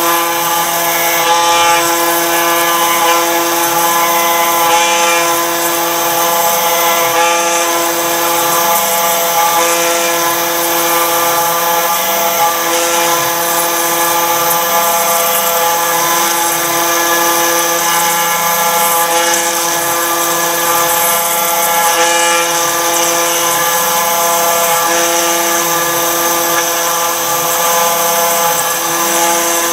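CNC router spindle whining steadily as its bit mills a groove into Three Rivers stone. A lower hum cuts in and out every few seconds, and a pitch underneath keeps rising and falling.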